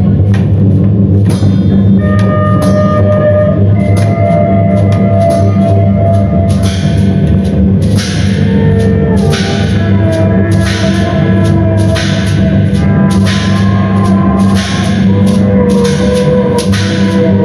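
Loud live band music: drums struck over a low, steady drone and held, gliding pitched tones. The drum strikes come regularly, about once a second, from around halfway through.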